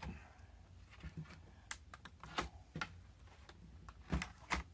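Plastic laptop case being pried apart: scattered sharp clicks and snaps of its clips working loose, the loudest two near the end.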